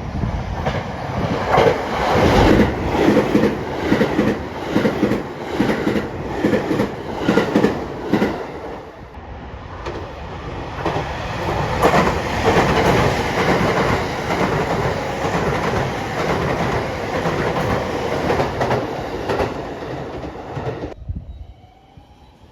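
A train passing close by at speed, its wheels clattering rapidly and rhythmically over the rail joints for the first nine seconds or so. The clatter then gives way to a steadier rushing noise, which cuts off suddenly near the end.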